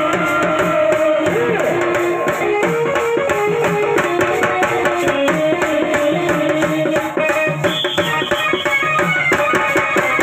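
Telugu chekka bhajana folk-song music: a drum beats a fast, steady rhythm, wooden clappers click, and a melody moves in held, stepping notes over it.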